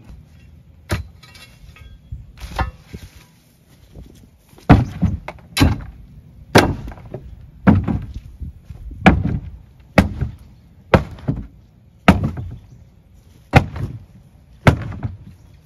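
A long iron bar striking and prying the weathered wooden boards of an old animal pen as it is knocked apart: a couple of lighter knocks at first, then from about five seconds in, heavy blows roughly once a second, the wood banging and cracking.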